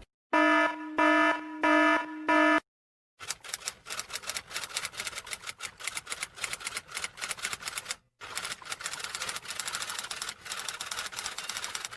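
Four short electronic beeps, then a long run of rapid typing clicks, with a brief pause about eight seconds in.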